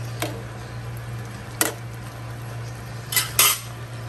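A utensil knocking against an aluminium cooking pan of simmering pork paksiw: sharp clinks about a quarter-second in, at about a second and a half, and two close together near the end, over a steady low hum.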